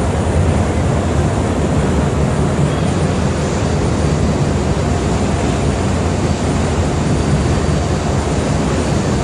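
A ship's engine running with a steady low drone, mixed with the rushing of the churning propeller wake.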